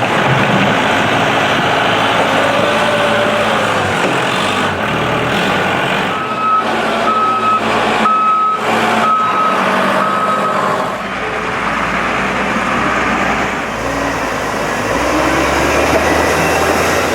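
Heavy truck engine running, with a reversing alarm beeping several times midway.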